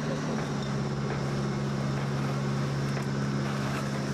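An engine running at a steady speed, a low even hum with no change in pitch.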